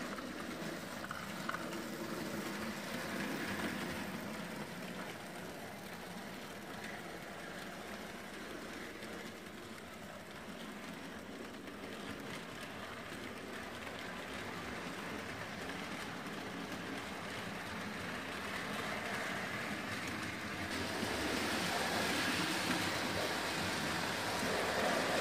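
Hornby 00 gauge model trains running on the layout's track: a steady running noise of small wheels on the rails, growing louder about 21 seconds in.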